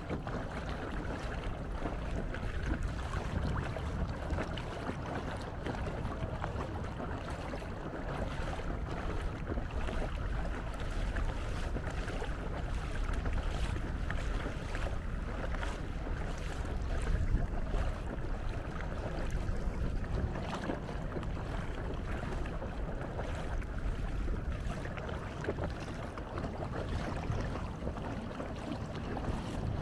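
Steady wind rumble on the microphone with water noise from a canoe under way.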